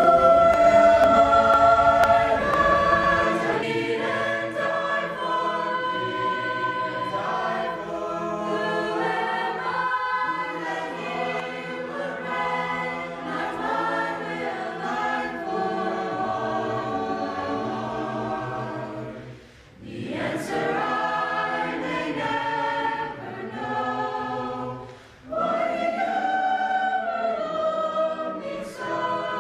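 Choir singing a hymn, with voices holding long notes together and two short breaks between phrases about two-thirds of the way through.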